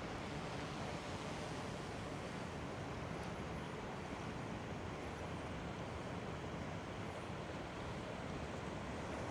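Steady rushing noise of flowing river water, with a few faint high chirps.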